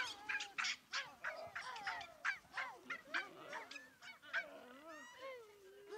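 Gelada baboons calling: a quick string of short, varied calls, several a second, many gliding up and down in pitch, with a wavering call near the end.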